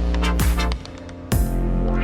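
Electronic background music with a steady beat and bass; it drops out briefly near the middle, then the beat comes back in.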